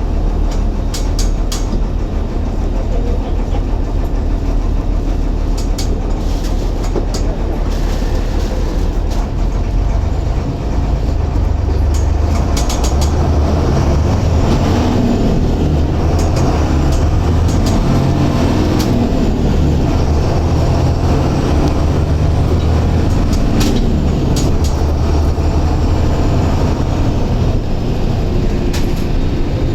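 Mercedes-Benz OF-1721 bus's six-cylinder turbodiesel engine running under way, a deep drone whose pitch rises and falls, with a short dip about ten seconds in. Sharp rattles and clicks come now and then.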